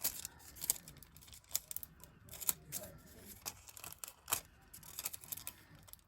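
Irregular small sharp clicks and taps, about one or two a second, of nail-art tools and nail tips being handled on the work desk.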